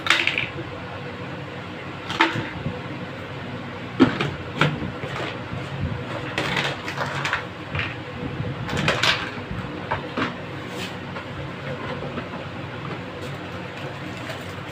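Hard plastic parts of an RO water purifier being handled and fitted together: a series of knocks, clacks and scrapes of plastic, several seconds apart, over a steady low hum.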